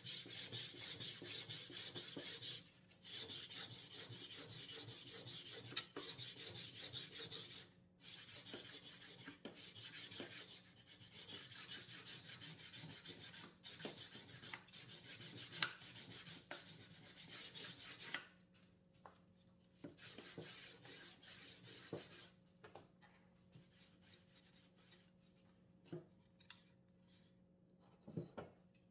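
Pine boards being hand-sanded with sandpaper: quick back-and-forth scratchy strokes in long runs that stop and start, thinning out to short bursts after about eighteen seconds. A few light knocks of wood come near the end.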